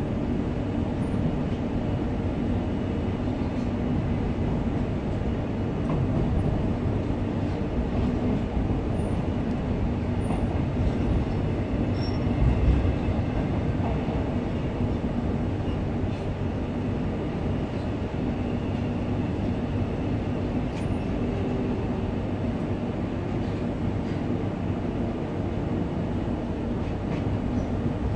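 Queensland Rail EMU electric train heard from inside the carriage while running along the line: a steady rumble of wheels on track with a low hum, and one brief louder bump about twelve seconds in.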